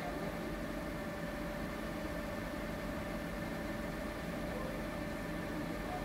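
A steady mechanical hum over a low rumble, as of a motor or engine running continuously.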